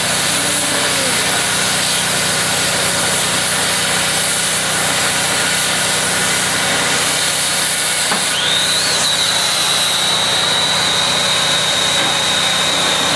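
Oxy-fuel cutting torch burning Chem-O-Lene fuel gas with a steady, loud hiss as it cuts a bevel through steel plate. About eight seconds in, a thin high whistle joins the hiss and holds steady.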